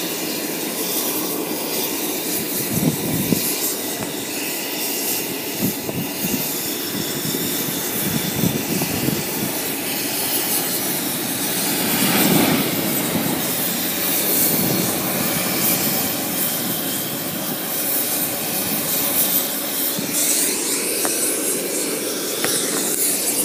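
Jet engines of an Alaska Airlines Boeing 737-900ER, its CFM56 turbofans, running with the aircraft on the ground: a steady rushing jet noise with a high whine on top, swelling a little around the middle.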